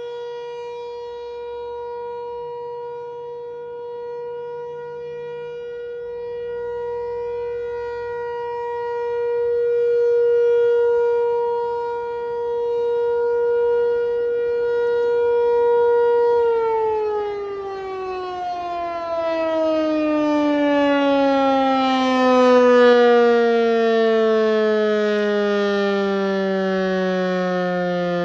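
ASC T-128 Tornado siren sounding its steady Alert tone, swelling and fading in loudness as it rotates. About two-thirds of the way in, the tone starts to fall steadily in pitch as the siren winds down.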